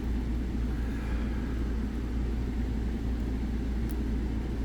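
Steady low hum with one faint, thin tick about four seconds in.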